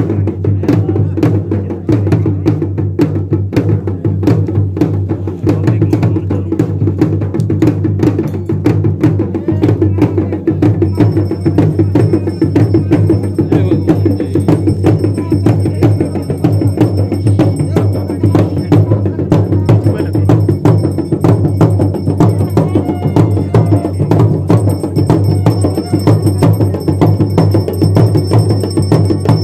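Folk drums beating a fast, steady dance rhythm, loud and unbroken.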